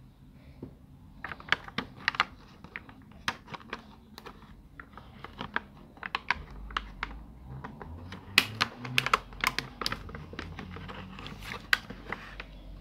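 Clear plastic packaging on a carded miniature toy set crackling and snapping as hands handle it to open it: irregular sharp clicks starting about a second in, densest past the middle.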